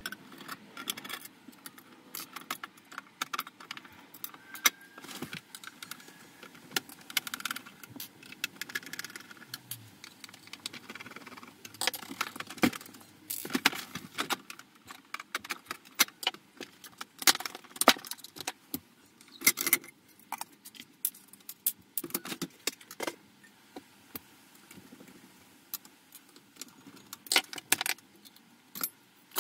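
Metal clicks, clinks and rattles from taking apart a 1982 Panasonic NV-366 VHS recorder: screws undone with a screwdriver and the sheet-metal top cover and shields lifted off and set down. The knocks come irregularly, with quieter gaps between them.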